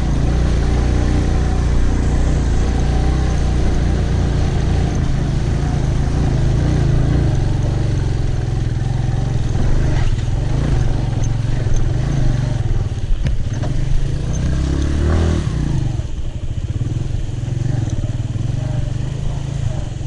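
Motorcycle engine running steadily as the bike rides over a rough dirt track, with a few sharp knocks from the bumps in the middle.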